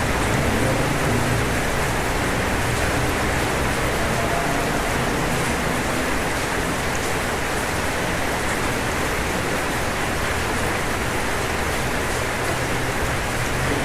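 Steady rain falling on a roof, an even hiss of drops, with a low rumble that fades over the first couple of seconds.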